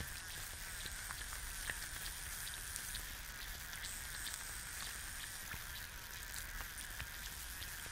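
An egg frying in a pan: a steady sizzle scattered with small pops and crackles as bubbles in the white burst.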